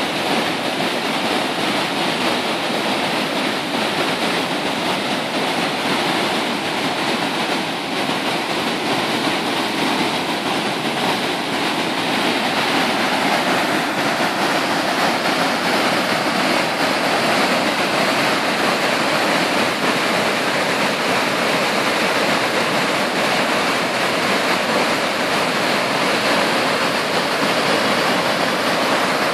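River in spate pouring over a low weir and churning into whitewater below it, swollen after heavy rain: a steady, loud rush of water that grows a little louder about halfway through.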